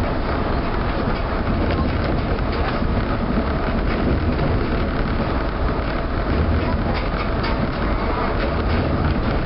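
Rubber-tyred Osaka New Tram automated guideway car running along its concrete guideway, heard from inside at the front: a steady low rumble and tyre noise with light, irregular clicks.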